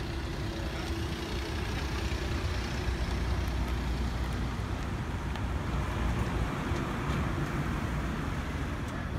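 Road traffic: cars driving past on a street, a steady noise of engines and tyres that is strongest in the low end.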